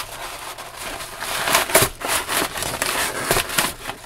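Scissors cutting through a paper mailing envelope, with the paper crackling and crinkling as it is held and pulled open; a series of sharp snips and rustles, loudest a little under two seconds in.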